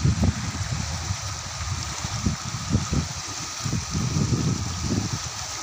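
Muddy flash-flood water rushing through an earth channel: a steady rushing hiss over an uneven low rumble.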